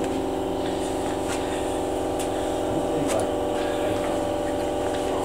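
Steady mechanical hum of a small electric motor running at an even pitch, with a few faint clicks.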